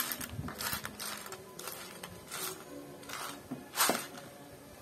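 Loz mini plastic building bricks clicking and rattling against each other and the plastic tub as fingers rummage through them, in a series of short clatters; the loudest comes near the end.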